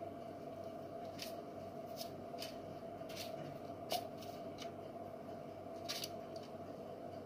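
Silicone pastry brush dabbing oil onto floured pieces of hake on parchment paper in a baking tray: about ten short, soft brushing strokes, over a steady faint hum.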